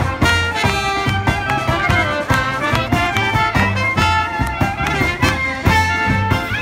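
Live band playing a dance tune, clarinet and violin carrying a melody that slides in pitch over a steady beat from upright bass and drum kit.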